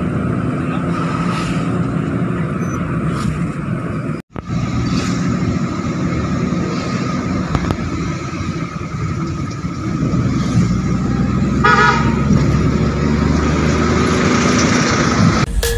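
Steady engine and road noise from inside a moving car, with one short vehicle horn toot about twelve seconds in. The sound drops out for an instant about four seconds in.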